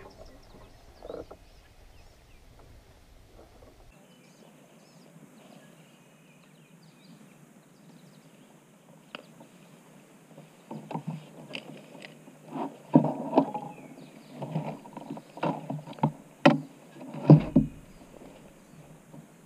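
Irregular knocks, bumps and rustles of gear being handled on a plastic fishing kayak, becoming busier and louder about halfway through, with a few sharp clicks.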